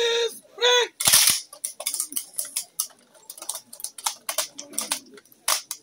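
A drawn-out shouted drill command, then a slightly ragged rifle volley from a firing party about a second in. Many irregular metallic clicks follow as the riflemen work their rifle actions.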